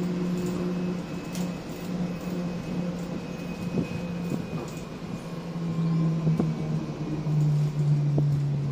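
MAN 18.240 bus's diesel engine and drivetrain running under way, heard from inside the passenger saloon. A steady low hum steps lower in pitch twice in the second half as it gets louder, with a faint high whine and a few light knocks from the body.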